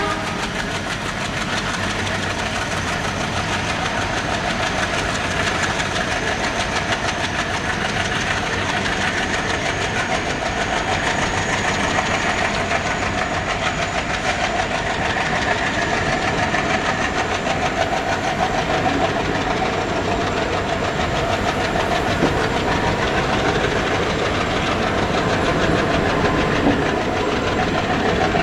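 ALCo diesel locomotive engine running steadily under load, growing slightly louder.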